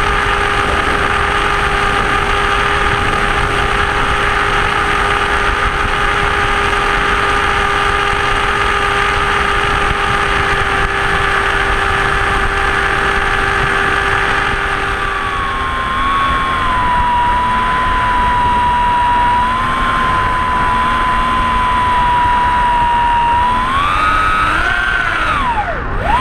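Electric motor and propeller of a Blitz RC Skysurfer model plane running steadily over a rushing hiss. About 15 seconds in the low hum drops out and a higher, slightly wavering whine takes over, and near the end the pitch swoops up and down several times.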